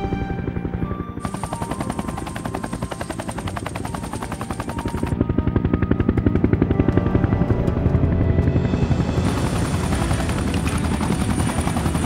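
Helicopter rotor chop, a fast steady beat with a high steady whine above it that drops out for a few seconds midway. It gets louder and closer about halfway through, as from beside the open cabin door.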